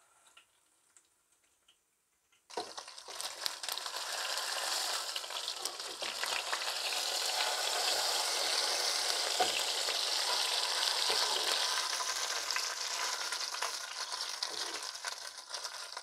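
A large breadcrumb-coated beef joint sizzling and crackling in hot olive oil in a pot, starting suddenly about two and a half seconds in after near quiet. The meat is being turned with a spatula and a wooden spoon to brown it on all sides.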